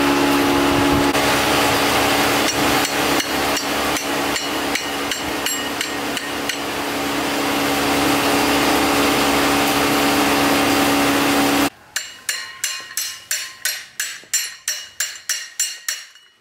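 A steady mechanical whir with scattered light clicks, which cuts off abruptly about twelve seconds in. A hammer then strikes the steel crusher rotor in a quick run of about fifteen blows, roughly three a second.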